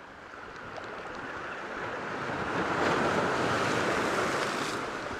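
Sea surf washing over a rocky shore: a wave surges in, building to its loudest about three seconds in, then ebbing away.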